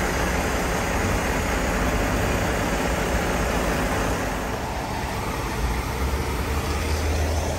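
A semi truck's diesel engine and vehicle noise running steadily, with the low rumble growing deeper and stronger about halfway through.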